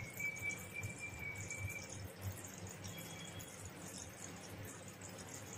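Faint bubbling of boiling jaggery syrup in a pan, with water swirling in a small steel bowl as fingers test a drop of the syrup in it.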